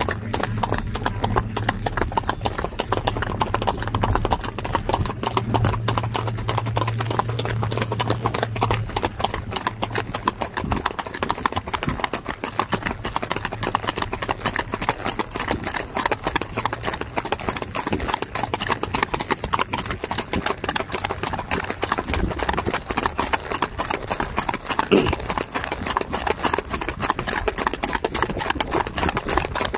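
Two ridden horses' hooves clip-clopping fast and evenly on a gravel road. A low steady engine hum from a nearby pickup truck is under the hoofbeats at first and fades out after about nine seconds.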